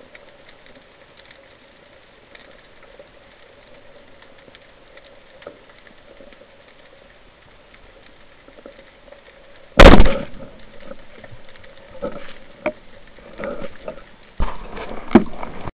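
Band-powered speargun firing underwater: a single loud sharp crack about ten seconds in, against faint crackling ambience. Scattered knocks and rattles follow as the fired gun and its line are handled.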